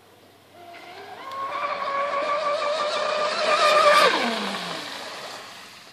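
Radio-controlled catamaran speedboat's motor whining at high speed. It rises as the boat approaches, is loudest about four seconds in, then drops sharply in pitch and fades as the boat passes.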